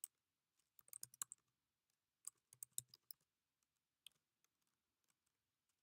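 Computer keyboard keys being typed in short bursts of soft clicks, a few quick keystrokes at a time with pauses between, as a terminal command is entered.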